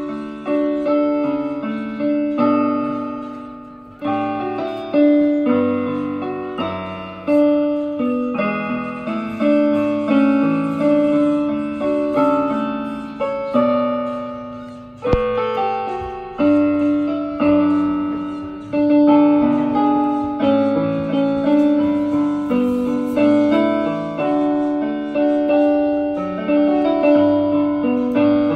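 Joy JK-87DT portable electronic keyboard played by hand with a piano voice: chords and a melody, each chord struck and left to fade. A single sharp click sounds about halfway through.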